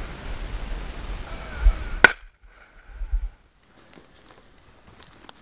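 Wind rushing over the microphone with faint, drawn-out animal calls, broken off by a single sharp crack about two seconds in. After that it is much quieter, with faint footsteps on a dirt track near the end.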